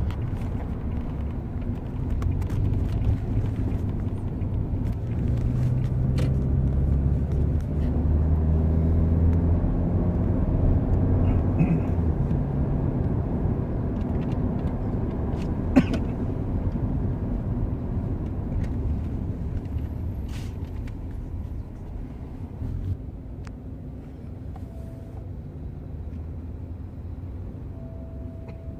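Car engine and road rumble heard from inside a moving car's cabin. The engine note rises for several seconds as the car accelerates, there is a single sharp knock about halfway through, and the noise eases off near the end as the car slows.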